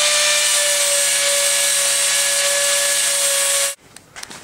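Power grinder running at full speed, grinding paint off the steel bicycle frame to bare metal so the weld will take: a loud, steady whine over a rasping hiss that cuts off suddenly near the end.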